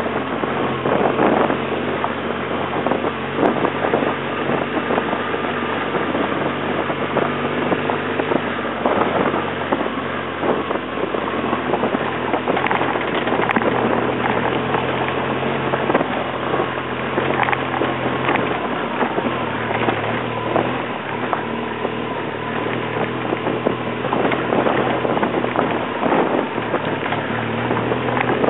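BMW R1200GS boxer-twin engine running under way over a rough gravel track, its note shifting several times with the throttle. Wind buffets the microphone, and there are frequent knocks and rattles as the bike jolts over stones.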